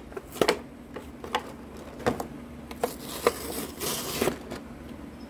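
Plastic blister packaging of a toy monster-truck pack being pried open, crackling with a series of sharp clicks and pops. About three and a half seconds in comes a second of rasping tearing as the cardboard card rips.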